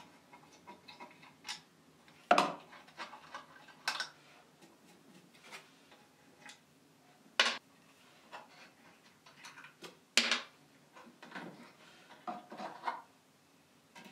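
Screwdriver backing the hinge screws out of a wooden cabinet door: irregular small metallic clicks and ticks, with a few sharper clinks and knocks among them.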